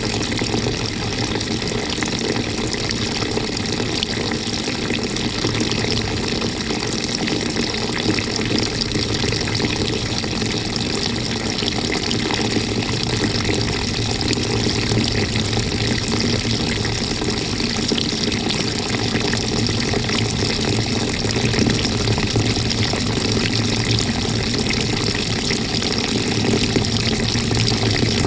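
Water running and swirling inside the tub of a 2018 GE GTW220ACKWW top-load washing machine, heard from a camera fixed to its agitator, over a steady low hum.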